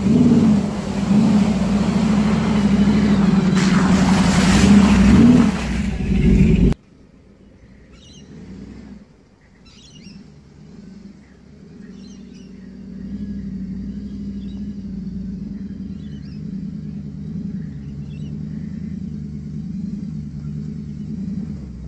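Toyota Land Cruiser V8 engine revving under load while it drives through a muddy puddle, with water and mud splashing. About seven seconds in it cuts to a quieter, steady engine note as the truck crawls slowly over rocks.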